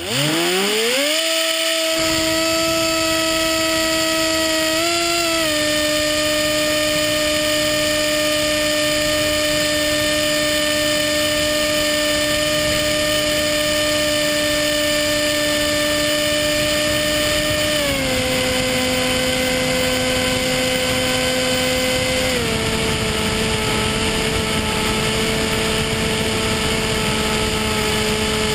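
Electric motor and propeller of a Sky Surfer RC plane whining as it spins up in the first second, then holding a steady pitch. The pitch steps down twice in the last third as the throttle is eased back. Wind rushes on the onboard camera's microphone throughout.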